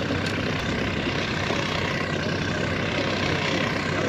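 Outboard boat motor idling steadily, a low even hum under a constant wash of noise.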